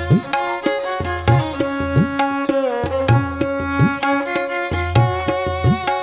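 Background instrumental music: held melody notes over percussion striking at a steady beat, with repeated low swooping strokes that rise in pitch.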